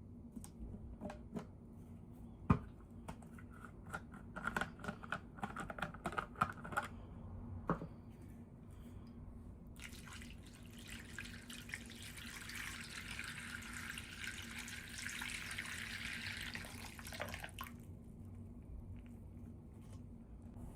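Scattered light clicks and taps, one sharper than the rest about two and a half seconds in. Then, from about halfway through, a steady hiss lasting some seven seconds, which stops abruptly.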